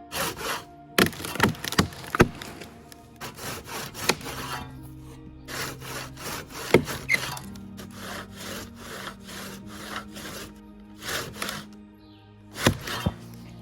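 A handsaw cutting through a fallen tree, in a run of uneven push-and-pull strokes with short pauses between, over soft background music.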